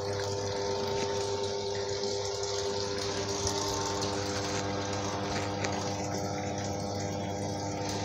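A water pump motor running with a steady hum, along with water pouring into a top-load washing machine's tub as it fills.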